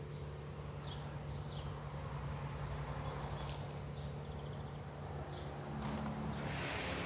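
Outdoor background with a steady low hum, a few short bird chirps and scattered light clicks, and rustling that grows louder near the end as soil is handled.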